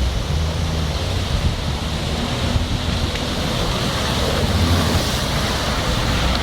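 Lada Niva engine running steadily, its low hum under a loud, steady rushing noise.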